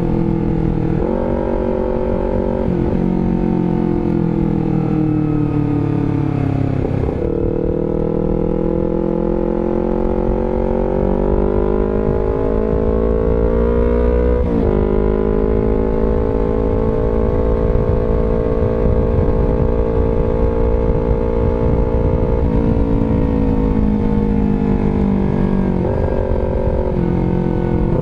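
Honda CBR250RR engine through an aftermarket R9 GP Series exhaust, running under way. The note climbs, breaks briefly at a gear change about 7 s in and again about 14 s in, climbs after each, then holds a steady cruise with small changes near the end.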